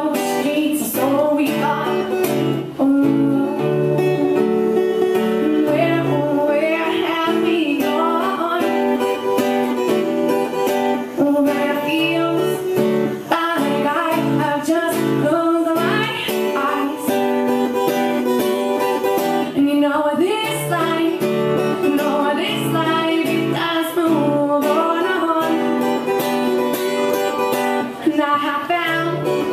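A woman singing into a microphone while strumming an acoustic guitar, a solo live performance with the voice and guitar running on without a break.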